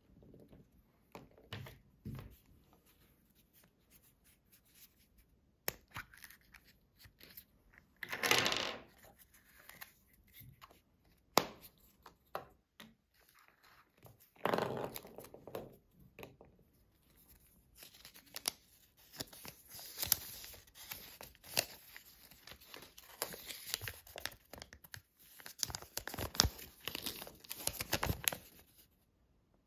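Paper and small plastic toy parts being handled on a table: scattered light clicks and two brief louder rustles, then about ten seconds of dense paper crackling as a folded paper instruction leaflet is unfolded.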